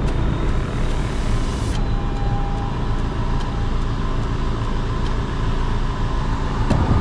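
Motor vehicle running steadily: a continuous low engine drone with road noise.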